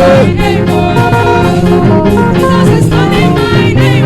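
Live worship band with drums and guitar playing between sung lines, a singer's held note on "name" ending just after the start.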